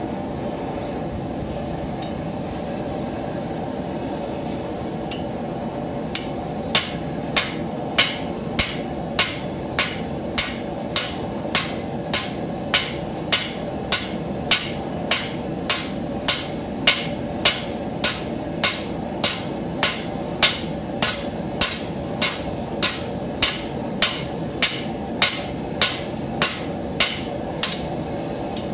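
Hand hammer striking red-hot plow share steel on an anvil, drawing out a knife blank: sharp, evenly paced blows about every 0.6 s, starting about six seconds in. Underneath is the steady sound of a propane forge burner running.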